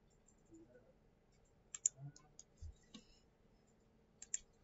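Faint computer mouse clicks: a quick double click about two seconds in, a few softer ticks after it, and another double click near the end.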